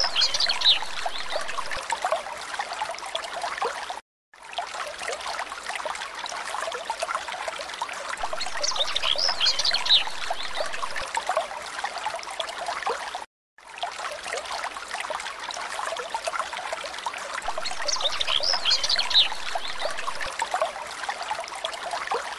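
Steady trickling water from a looped background track that repeats about every nine seconds, with a short burst of high chirps early in each repeat and a brief dropout between repeats.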